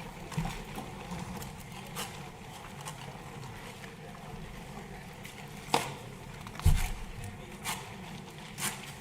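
Room tone of a large assembly hall: a steady low background hum with scattered clicks and knocks, and one heavier thump a little under two-thirds of the way through.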